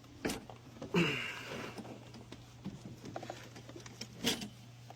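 A lawnmower being pulled out and lowered to the ground: scattered knocks and clunks, with a louder scraping rattle about a second in.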